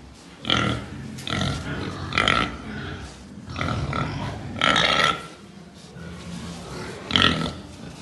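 A pen of young pigs calling, with about six short, loud, high-pitched squeals spread through the few seconds.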